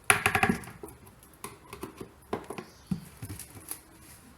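A tool stirring and scraping thick magnetic paint in its can, heard as quick clicking and tapping. A dense rattle of clicks comes right at the start, then scattered knocks and scrapes.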